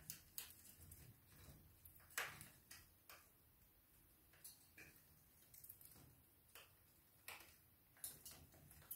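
Budgerigars gnawing at a piece of cork bark: faint, irregular small clicks of their beaks biting into the cork, one louder than the rest about two seconds in.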